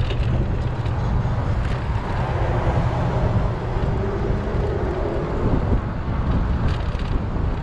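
Wind rushing over a bicycle-mounted GoPro's microphone, over the steady noise of road traffic, with a vehicle's hum passing about three to five seconds in.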